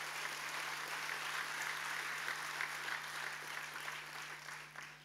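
A large audience applauding, a steady wash of clapping that dies away near the end.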